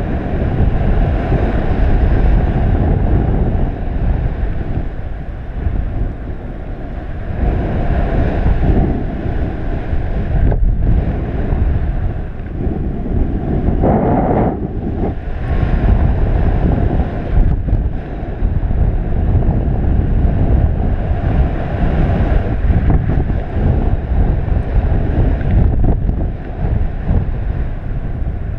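Wind buffeting the microphone of a paraglider pilot's camera in flight, a steady, loud rush heaviest in the low end that swells and eases gently.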